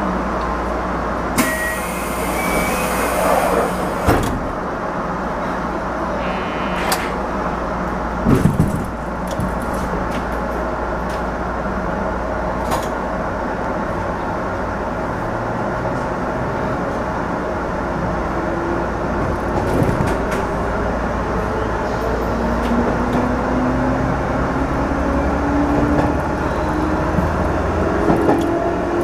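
213 series electric train setting off from a station, heard from the driver's cab: steady running noise with a short hiss about two seconds in and a few sharp knocks, then a traction-motor whine that rises steadily in pitch as the train gathers speed.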